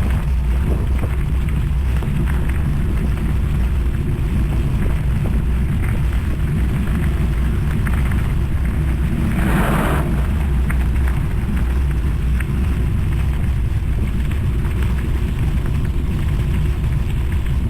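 Wind buffeting an action camera's microphone while cycling: a steady, loud low rumble, with a brief hiss about nine and a half seconds in.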